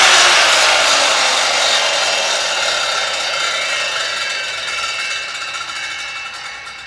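Handheld electric circular saw spinning down after its cut: a whine that falls slowly in pitch and fades away steadily as the motor and blade coast to a stop.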